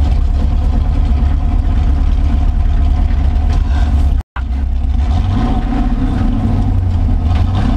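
Ford F100's engine through a custom dual exhaust with Black Widow Widow Maker 10 mufflers and a stainless X-pipe, heard from inside the cab while driving: a steady low rumble. It breaks off for a split second about four seconds in.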